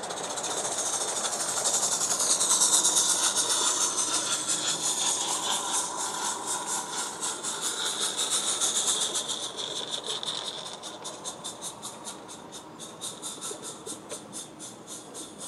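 Roundhouse 'Karen' 16 mm-scale live-steam locomotive passing close with rapid, even exhaust beats over a steady steam hiss, its wagons clicking over the track. The sound fades after about ten seconds as the train draws away.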